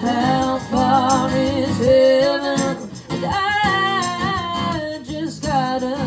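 Live acoustic performance: women singing into microphones over a strummed acoustic guitar, with a tambourine jingling along.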